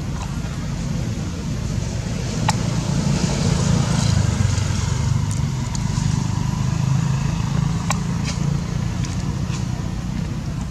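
A motor vehicle engine running steadily, a low rumble that swells a little a few seconds in, with a few sharp clicks over it.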